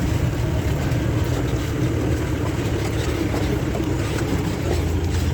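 Safari jeep's engine running as the vehicle moves, a steady low rumble with road noise.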